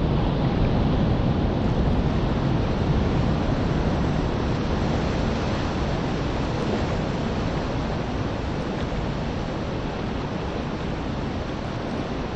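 Steady rushing of wind on the microphone mixed with small waves washing onto a pebble shore, heaviest in the low range and easing slightly toward the end.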